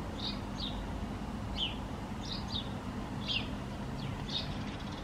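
A small bird chirping, short high notes roughly two a second, over a steady low background hiss.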